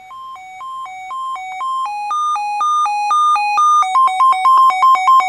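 Sangean CL-100 weather radio's alert siren sounding on its siren test: an electronic two-tone beeping that alternates between two pitches and grows steadily louder. About two seconds in it steps up to a higher pair of tones, then near the end it drops back and alternates faster before cutting off suddenly.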